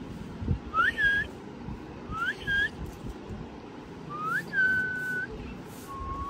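Someone whistling short two-part notes, each a quick upward slide into a held note, three times, with a fourth beginning near the end. A soft handling thump comes about half a second in.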